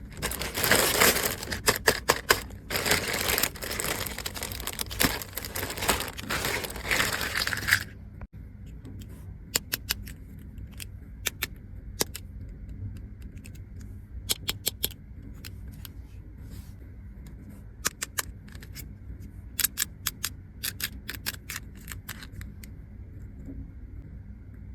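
Plastic packaging crinkling and tearing for about eight seconds, then stopping abruptly; after that, scattered small clicks and taps of plastic toy pieces being handled.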